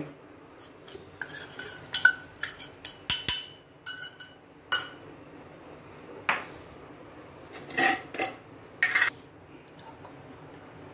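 A stainless-steel spoon clinking and scraping against a steel bowl and pot while jaggery is spooned in. A quick run of clinks, some briefly ringing, lasts about five seconds, followed by a few single clinks.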